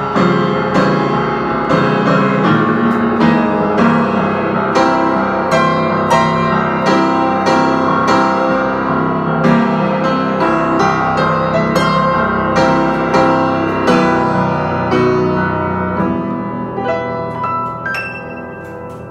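Upright piano played solo: jazz chords struck again and again over a low C pedal held in the left hand, the harmony moving toward E minor. Near the end it thins to a few high notes at the top of the keyboard, left to ring and fade.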